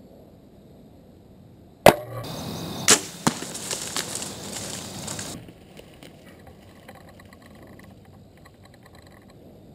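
Shot from a Mathews Z7 compound bow: one sharp crack of the string about two seconds in, followed by a few knocks and about three seconds of a deer crashing away through dry brush and logging slash, which stops abruptly.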